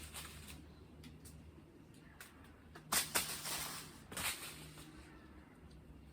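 Rustling and sharp snapping of leaves and branches while water apples are picked in the tree, with a few brief clicks and a loud burst of rustling about three seconds in and again just after four seconds.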